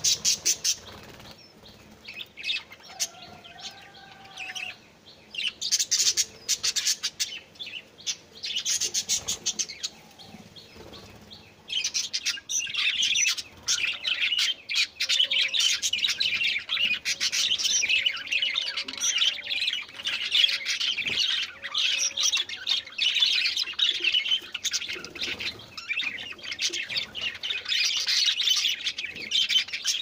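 Budgerigars and Java sparrows chirping and chattering together, a few scattered calls at first, then continuous busy high chatter from about twelve seconds in.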